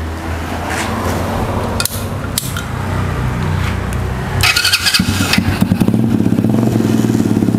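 Lenka MXGP 20 mini trail bike's 110cc four-stroke automatic engine being started and running. It runs steadily at first, then after about five seconds gets louder with a quick, even pulsing beat.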